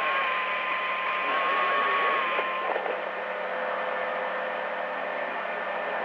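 CB radio receiver hiss and static on an open channel, with a thin whistle that wavers and then drops to a lower, steadier tone about two and a half seconds in.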